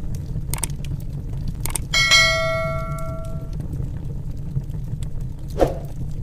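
Wood fire crackling with a steady low rumble and a few sharp pops. A single bell ding about two seconds in rings out for about a second and a half.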